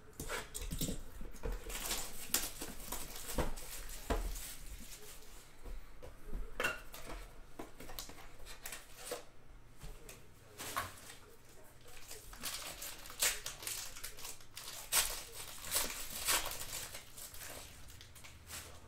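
A football card box being opened and a foil-wrapped card pack unwrapped by hand: a string of irregular rustles, crinkles, tears and light taps of cardboard and wrapper, with the cards handled at the end.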